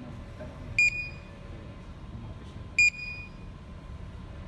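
Furuno Felcom 15 Inmarsat-C terminal beeping in its Distress/SSAS button test mode while it sends the test alert: two short, high-pitched electronic beeps about two seconds apart, over a steady low hum.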